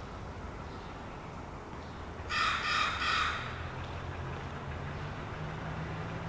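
A crow calling: three short caws in quick succession about two seconds in, over a steady low hum.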